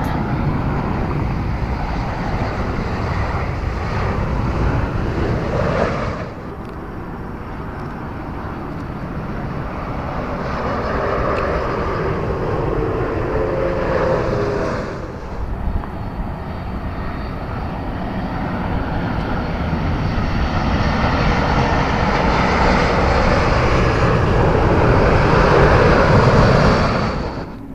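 Jet airliners on final approach: a steady jet engine rumble that changes abruptly twice between takes. In the last part a four-engine Boeing 747's engine noise grows steadily louder as it comes in low.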